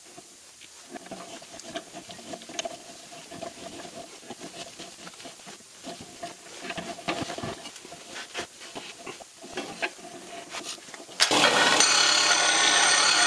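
Hand tap cutting 1/8-inch straight pipe threads into a metal pipe fitting, turned by a tap wrench, with irregular light clicks and scraping. About eleven seconds in, a disc sander starts grinding the end of the fitting, loud and steady.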